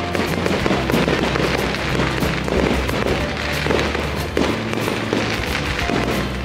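Aerial fireworks bursting in quick succession: a dense string of bangs and crackles over music.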